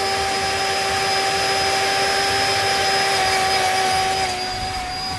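Spindle milkshake mixer's motor running with a steady whine, its spindle blending a shake in a stainless steel cup. About four seconds in, the pitch dips slightly and the sound drops off.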